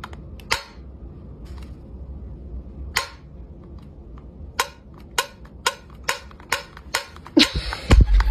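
Metal pull-tab ring of a cat food tin being flicked, making sharp clicks: two spaced a few seconds apart, then a run of about two a second. Near the end comes a louder rustle and low thump of the tin being handled.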